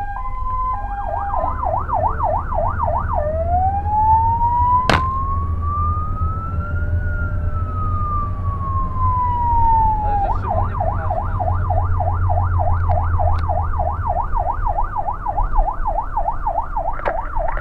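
A fire engine's electronic siren, heard from inside the cab on an emergency run, cycling through its tones. It starts on a brief two-tone hi-lo, switches to a fast yelp at about four sweeps a second, then gives one slow wail that rises and falls over about seven seconds. It goes back to the yelp, and returns to the hi-lo near the end. The engine rumbles underneath, and a single sharp knock comes about five seconds in.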